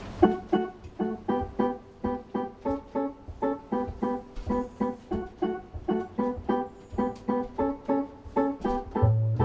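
Piano playing short repeated chords at a steady pulse, about three a second, as a piece begins. A double bass comes in low near the end.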